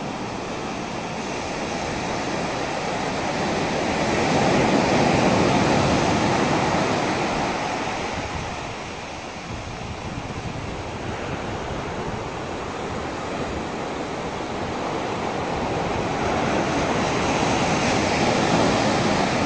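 Ocean surf: a steady wash of breaking waves that swells loudest about four to seven seconds in and again near the end.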